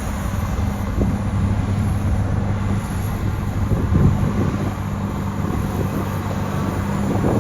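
Bulldozer's diesel engine working steadily under load, with wind buffeting the microphone.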